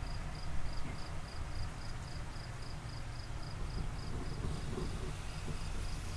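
A cricket chirping steadily, about three short high chirps a second, over a low rumble.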